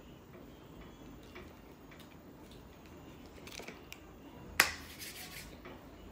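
Faint rustles and small clicks, then one sharp finger snap about four and a half seconds in.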